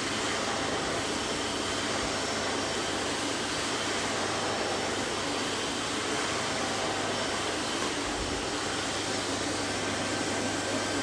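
Vacuum cleaner running steadily: a constant rushing whoosh of air with a faint motor hum.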